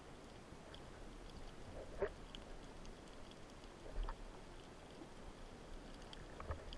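Faint underwater ambience of a rocky shoreline: a steady low hiss with scattered small clicks and crackles, and two louder short knocks about two and four seconds in.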